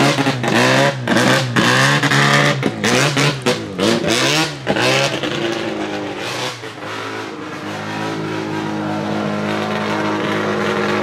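Mazdaspeed March 84G's twin-turbo 13B rotary engine blipped repeatedly, the pitch jumping up and falling back about twice a second, then settling a few seconds later into a steady idle that slowly grows louder.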